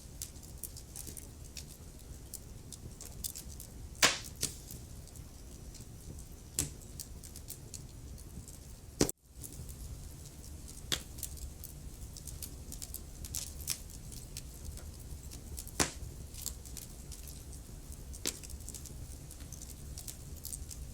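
Wood fire crackling in a fireplace: irregular sharp pops and snaps over a low steady rumble, with louder pops about four and sixteen seconds in. The sound cuts out for an instant about nine seconds in.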